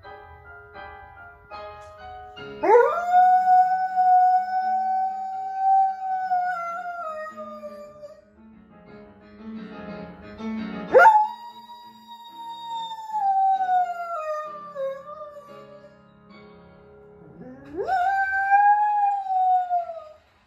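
A dog howling along to music: three long howls, each sweeping up quickly, held, then sliding down and fading. A tune of short, stepped notes plays at the start, under the first howl.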